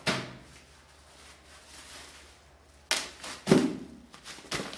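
A sharp thump at the start, then a bubble-wrapped parcel being handled: a few short crinkling and knocking sounds from about three seconds in until near the end.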